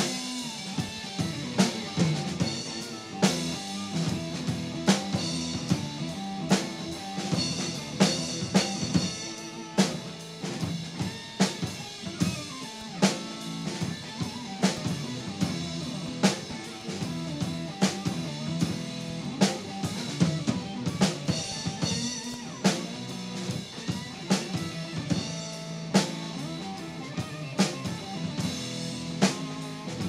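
Live blues-rock instrumental break: a hollow-body electric guitar played through an amplifier over a drum kit beat, with sharp drum hits at a steady pace.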